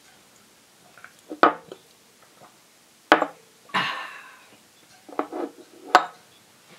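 Heavy-bottomed glass shot glasses knocked down onto a wooden tabletop: three sharp knocks with a short ring, about a second and a half in, three seconds in and near the end, the last as a glass is tipped over onto its side. A short rough sound follows the second knock, with a few small clicks before the last.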